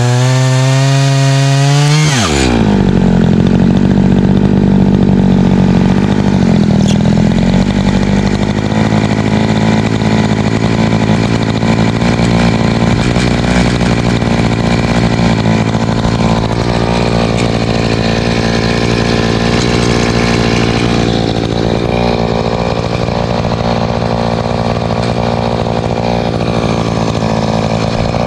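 Echo CS590 Timberwolf two-stroke chainsaw on a log mill running at full throttle, pitch rising as it finishes the cut. About two seconds in the throttle is released and the engine drops to a steady idle.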